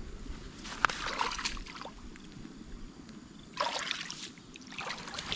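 Water splashing in several short bursts, with a sharp click about a second in.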